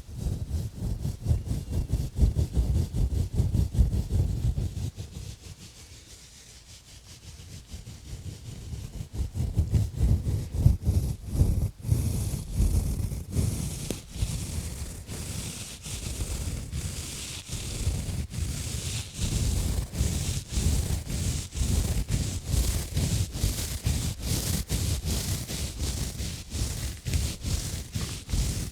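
Exfoliating gloves rubbing and scratching close around a microphone in quick, repeated strokes, with low thuds under a scratchy hiss. The strokes soften about five seconds in, then pick up again, scratchier, from about eight seconds in.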